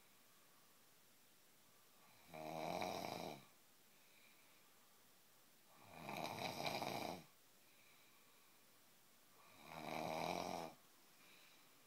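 Snoring: three long snores about four seconds apart, each a pitched buzz on the in-breath, with quiet between them.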